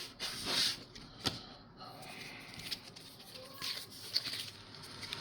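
Pokémon trading cards being handled and slid against each other: a few soft brushing sounds and light clicks.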